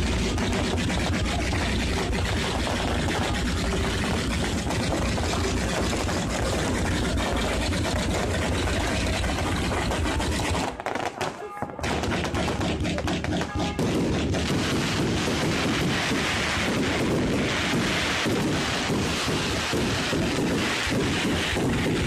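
Fireworks going off close overhead: a continuous rapid barrage of bangs and crackling. It drops away briefly about halfway through, then resumes.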